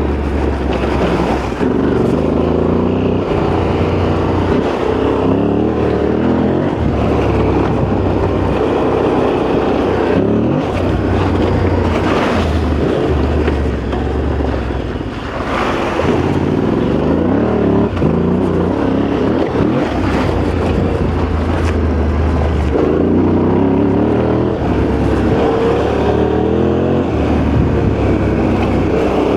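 Yamaha Ténéré 700's parallel-twin engine running as the bike is ridden, the revs climbing and falling repeatedly with throttle and gear changes.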